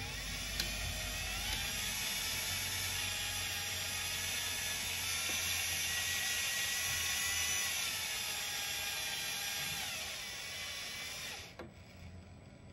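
Fuel tanker's delivery pump and meter pumping gas oil through the hose reel with a mechanical whine. It rises in pitch as it comes up to speed about a second in and holds steady. About eight seconds in it drops in pitch as the flow is slowed and the valve closes toward the preset quantity, then it stops shortly before the end.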